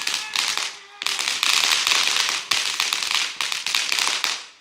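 Consumer firework hissing and crackling with a dense run of rapid small pops. It breaks off briefly about a second in, starts again, and fades out near the end.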